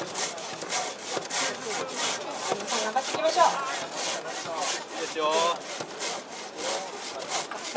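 Silky Katanaboy folding saw cutting fast through a bark-covered log, rasping strokes about three a second.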